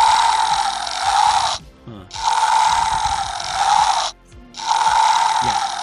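Battery-powered Triceratops toy's built-in electronic roar, set off by pressing its mouth, played three times in a row through its small speaker. Each roar lasts about two seconds with a short gap between, and sounds thin, with no bass.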